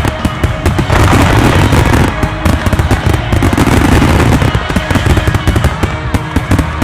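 Fireworks finale: a dense, rapid barrage of starmine shells bursting and crackling, loud, with a pop song playing beneath.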